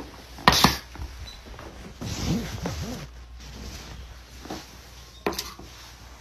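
Stainless-steel dog bowls set down hard on the floor: a sharp double clink about half a second in and another clink about five seconds later. A brief low vocal sound comes in between.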